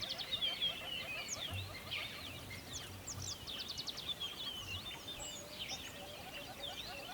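A dense chorus of many songbirds chirping and singing over each other: quick high chirps, sweeping whistles and a rapid trill about halfway through, with fainter, lower calls underneath.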